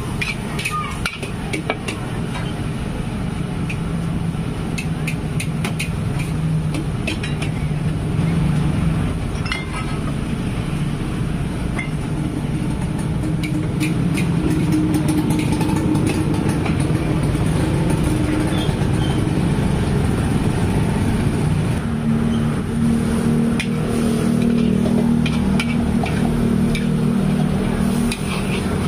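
Vegetables stir-frying in a hot wok: a steady sizzle and burner noise, with the metal spatula scraping and clinking against the wok now and then.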